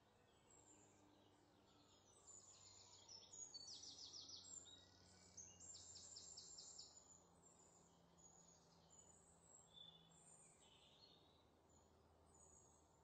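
Faint birdsong: high chirps and several quick trills, busiest a few seconds in, over a faint low steady hum.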